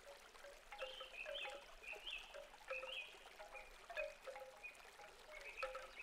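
Wind chimes ringing irregularly, several struck notes a second, each ringing briefly.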